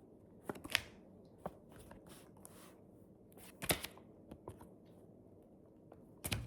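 Panini sticker pack being opened and stickers handled: scattered soft crinkles and clicks of paper and wrapper, a few at a time, the sharpest about halfway through and near the end.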